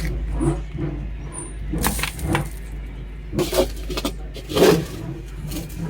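Cat litter scooper scraping and sifting through sand on a chicken coop floor, in a few irregular scrapes, over a low steady hum.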